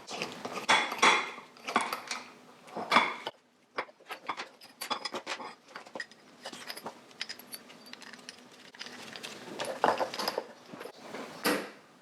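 Metal parts and tools being handled on a workbench: irregular clattering and knocks with quick light clinks in between, loudest near the start and again near the end.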